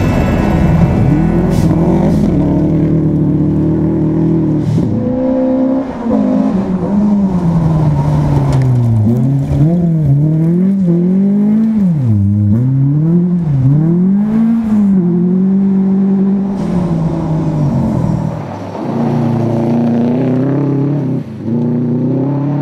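Subaru Impreza rally car's flat-four engine at full speed on a gravel stage. The note holds for a few seconds, then climbs and drops again and again as the driver lifts, shifts and gets back on the throttle.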